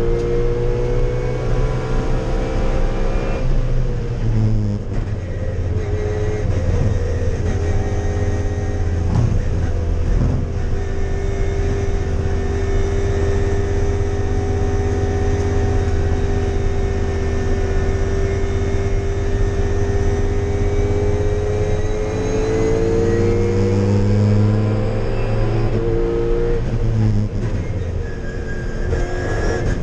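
Race-built, naturally aspirated 4.0-litre Toyota 1UZ-FE VVTi V8 in a GT86, heard from inside the cabin under hard driving on track. The engine note breaks and drops at gear changes in the first few seconds, climbs slowly for a long stretch, then falls in steps near the end.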